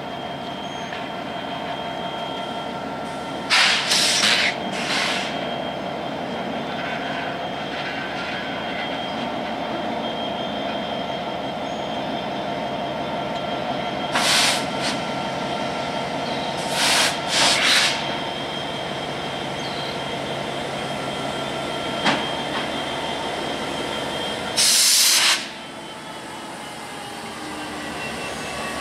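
Diesel freight locomotives moving slowly past, a steady engine drone with high whining tones over it. Short, loud hissing bursts break in several times, the loudest about 25 seconds in.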